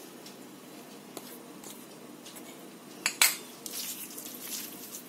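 Two sharp clinks of a metal utensil against a steel plate about three seconds in, followed by a soft, patchy rustle as flour is poured onto grated cabbage and carrot.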